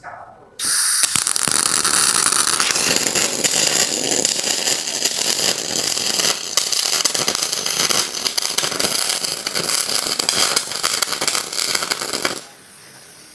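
A welding robot's arc crackling steadily as the robot runs the seam it was just taught. The arc starts about half a second in and cuts off sharply near the end, leaving a faint steady hiss.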